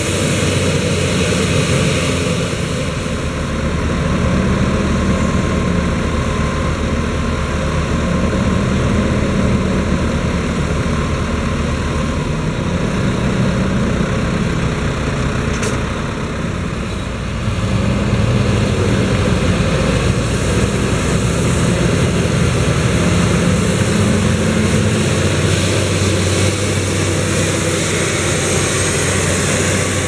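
Large farm tractor engines running steadily, with a slow wavering low hum.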